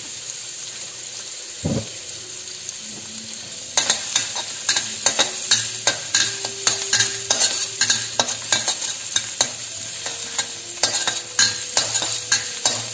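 Chopped garlic sizzling in oil in a stainless steel wok, with a single knock just before two seconds in. From about four seconds in, a metal spatula scrapes and clacks against the wok in quick repeated strokes as the garlic is stirred and fried until fragrant.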